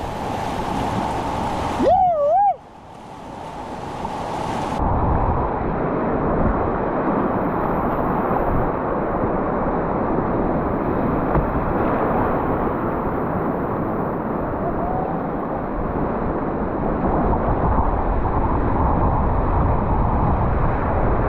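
Steady rush of whitewater in a river rapid. About two seconds in there is a brief wavering whistle-like tone, and from about five seconds in the rush sounds duller and muffled.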